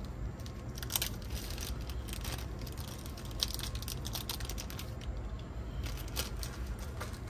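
Small handling noises, scattered light clicks and rustles in clusters, as the cracked rubber tire on a Pioneer T-1000 cassette deck's idler is swapped for a new one by hand, over a steady low hum.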